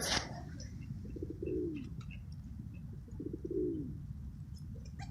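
Pigeons cooing: two low coos about two seconds apart, each falling in pitch at its end.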